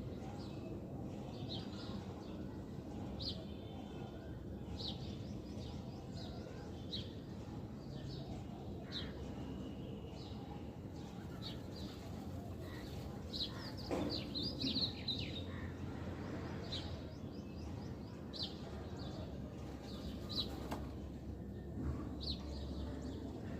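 Birds chirping: short, high chirps scattered throughout, coming thicker about halfway through, over a steady low background noise.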